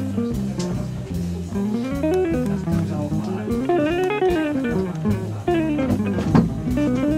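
Background music: a guitar playing quick runs of notes up and down over a steady bass line.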